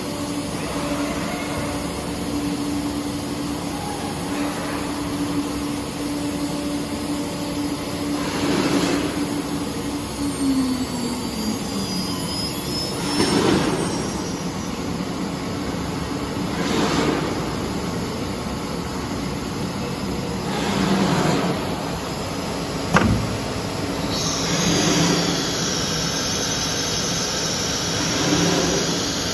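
ATC CNC router machine running while cutting wood, with swells of cutting noise about every four seconds. A steady tone from the machine drops in pitch about a third of the way through; a sharp click comes near the end, followed by a high steady hiss.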